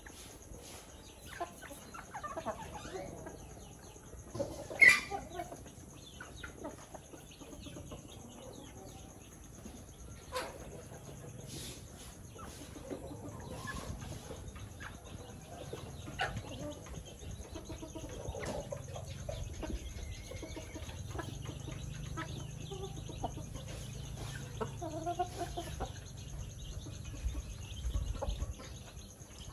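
A flock of chickens clucking softly and intermittently while they feed on the ground, with one short, loud sound about five seconds in.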